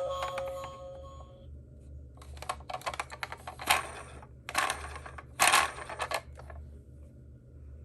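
Toy minicars clattering against each other: rapid runs of small hard clicks and knocks in several bursts, the loudest about three and a half and five and a half seconds in. An electronic tone with a clicking beat cuts off about a second and a half in.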